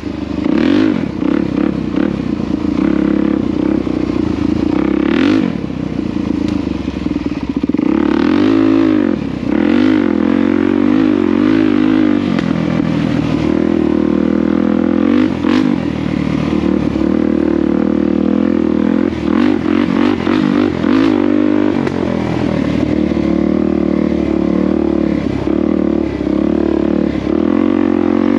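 Motorcycle engine running and being ridden, its pitch rising and falling over and over as the throttle is worked.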